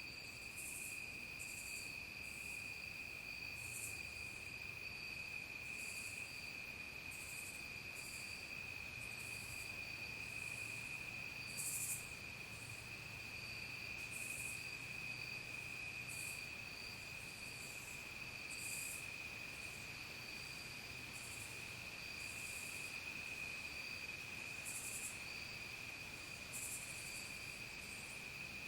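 Evening chorus of crickets and other insects: one steady, unbroken high trill, with short, higher chirps from other insects coming irregularly about once a second.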